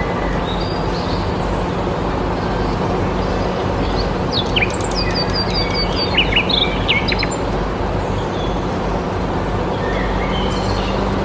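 Birds chirping, with a quick run of short, high chirps about halfway through, over a steady noise with a low hum.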